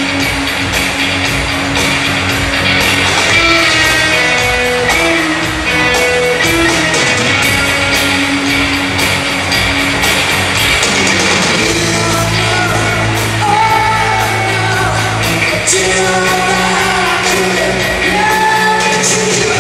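Live rock band playing at full volume: electric guitars, bass and a drum kit with keyboards, and a singer's voice carrying long held notes over the band.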